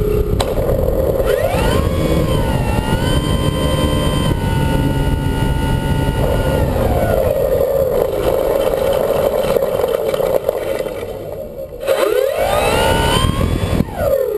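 Radio-controlled model airplane's propeller engine running, heard from a camera on the plane itself, with heavy wind rush on the microphone. Its pitch rises a couple of seconds in, holds, sinks, then dips sharply and climbs again near the end.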